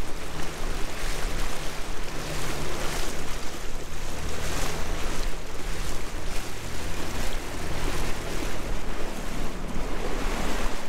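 Small boat's outboard motor running steadily at cruising speed, a low even hum under heavy wind buffeting on the microphone and the rush of water along the hull.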